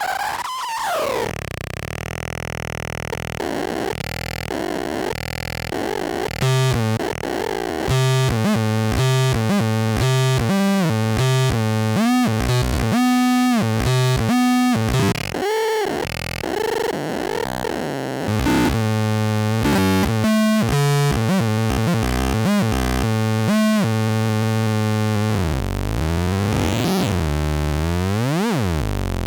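Lefty's Sound Lab Rumble Noise analog noise synth and fuzz pedal making glitchy, distorted electronic tones. Choppy, stuttering buzzes jump between pitches, with a falling sweep at the start and a swooping sweep near the end.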